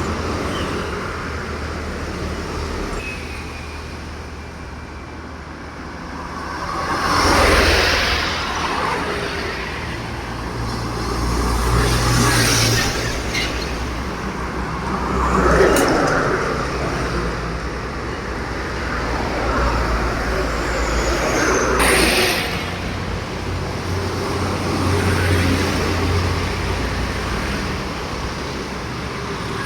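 Road traffic passing close by: heavy truck engines rumbling and tyre noise swelling and fading as several vehicles go past one after another.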